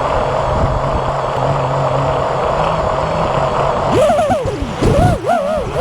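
FPV racing quadcopter's motors and propellers: a steady whir at cruising throttle, then from about four seconds in the pitch swings rapidly up and down as the throttle is worked.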